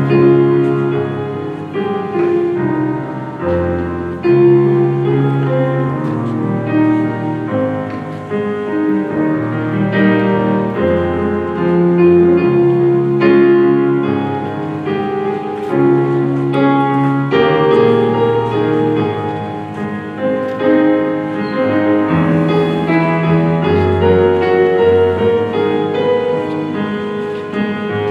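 Slow instrumental piano music: sustained chords and melody notes, with no singing.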